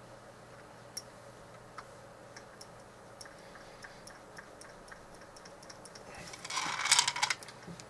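Faint, irregular ticks and clicks from a hand-built record-cutting lathe as its cutter head is handled at the end of a cut, then a hissing rush lasting about a second and a half, starting about six seconds in.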